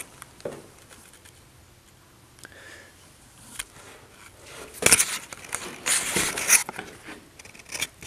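Scattered crunching and rustling from someone moving with a handheld camera, with the loudest bursts about five and six seconds in.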